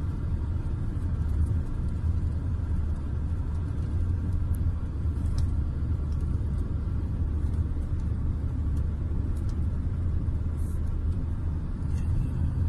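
Steady low rumble of a car driving on a highway, heard from inside the cabin, with a few faint ticks now and then.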